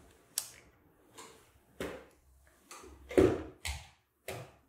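About seven clicks and knocks from an Extech handheld multimeter being handled: its rotary switch is turned, and the meter and its test probes are moved off the bench. The loudest knock comes a little after three seconds in.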